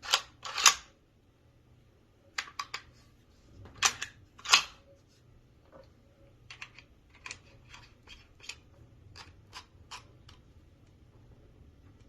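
Sharp clacks and clicks of a Benelli Nova 12-gauge pump shotgun being handled and put together. There is a loud pair of clacks right at the start and another pair about four seconds in, a quick cluster of clicks between them, then a run of lighter clicks at roughly two a second.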